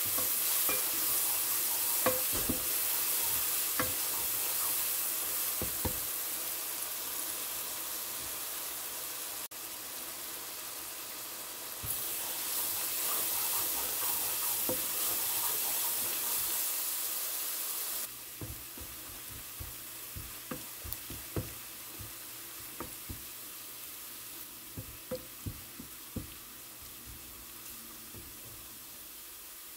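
Minced garlic and shallots frying in oil in a nonstick pan: a steady sizzle, with scattered knocks and scrapes of a wooden spatula stirring them. The sizzle drops to a quieter level about two-thirds of the way through, as the garlic turns golden.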